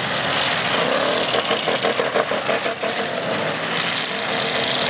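Demolition derby cars' engines revving hard, with a run of rapid clattering knocks through the middle.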